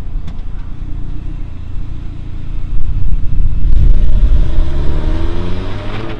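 Saab 9-5 Aero's turbocharged four-cylinder engine running on its new spark plugs and direct ignition cassette, with a low rumble. From about three seconds in it grows louder and its note shifts in pitch as it takes load and revs.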